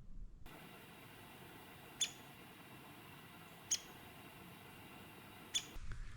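Three short, high-pitched squeaks about two seconds apart, over a steady faint hiss.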